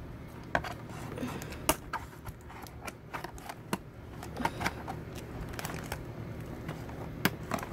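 Irregular small clicks and rustling of plastic and cardboard as a plastic packaging fastener holding a toy to its box is picked at and worked loose, with a few sharper clicks standing out.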